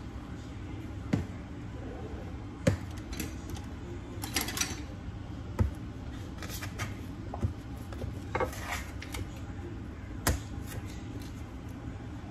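Kitchen utensils and cookware being handled: a few sharp knocks and clinks, with two short scraping rattles, over a steady low hum.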